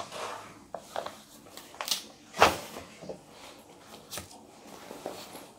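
Handling noises: a few light knocks and rustles of things being moved about, the loudest about two and a half seconds in.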